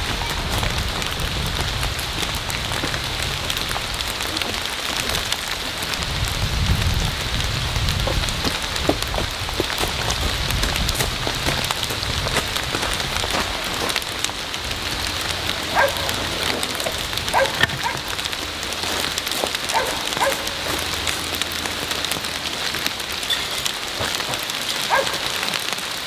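Steady rain, a dense spread of drops hitting surfaces close to the microphone, with a low rumble swelling briefly about six to eight seconds in.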